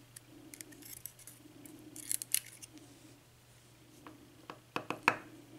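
Small metallic clicks and taps of pin-tumbler pins and springs being worked out of an American Lock Series 5200 padlock core, in a few scattered groups.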